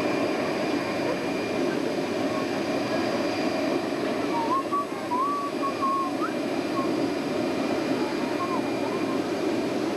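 Steady airliner cabin drone: a dense even rumble with a thin, high, constant whine above it. About halfway through, faint wavering whistle-like tones come and go.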